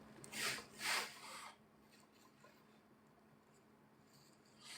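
Two or three soft rubbing swishes in the first second and a half, then near silence.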